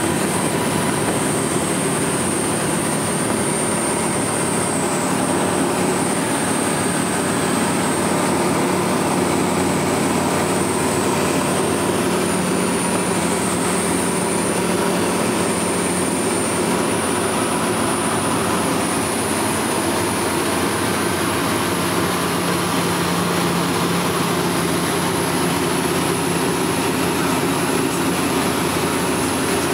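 Steady drone of the Dynamic WT9 ultralight's piston engine and propeller in cruise, heard inside the cockpit together with airflow noise, with a thin high whine above it.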